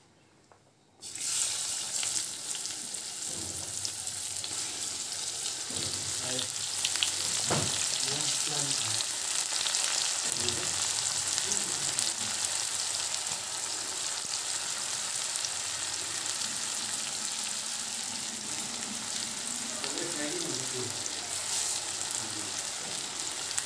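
Chopped onions hit hot oil in a kadhai and sizzle, starting abruptly about a second in, then frying with a steady crackling sizzle.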